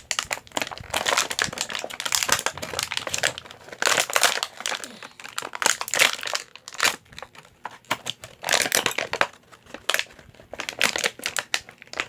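Plastic packaging crinkling and rustling in irregular handfuls as pieces are pulled out of it.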